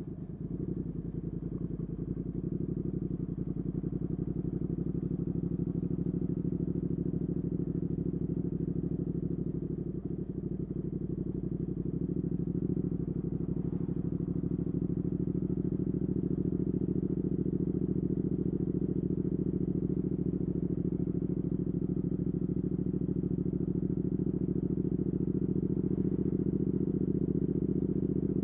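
2019 Triumph Speed Twin's 1200 cc parallel-twin engine running through a Weslake Shorty Pro exhaust under way, with brief dips in level near the start and about ten seconds in, then a steady pull that slowly grows louder.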